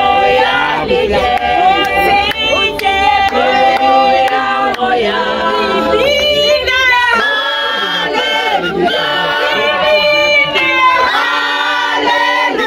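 A group of people singing together without instruments, several voices at once.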